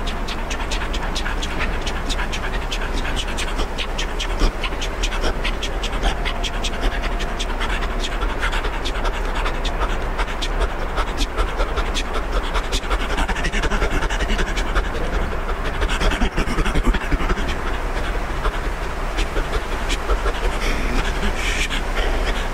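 A man's wordless sound-poetry vocalising: rapid, rhythmic mouth and throat noises with a quick run of pulses that thins out about halfway through.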